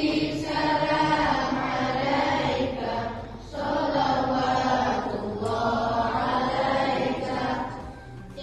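A group of voices chanting a melody together in two long, drawn-out phrases, with a short break about three seconds in.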